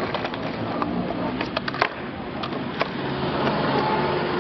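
Skateboard wheels rolling over rough concrete, with sharp clacks of the board hitting the ground: a cluster about a second and a half in and another near three seconds.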